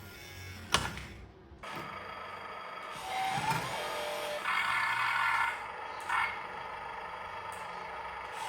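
Small electric motors and gearing of RC construction models whirring in short spells, one with a brief rising whine as it speeds up. There is a sharp knock under a second in.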